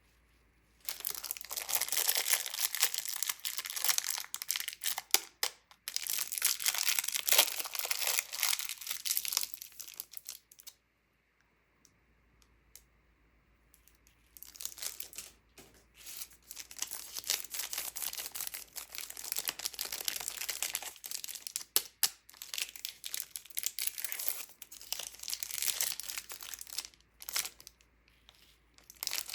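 Crinkly candy wrappers and packaging being torn open and crumpled, in dense crackling stretches with a pause of a few seconds in the middle.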